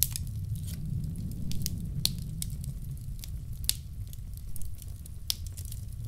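Wood fire crackling in a fireplace, with irregular sharp pops and snaps over a steady low rumble.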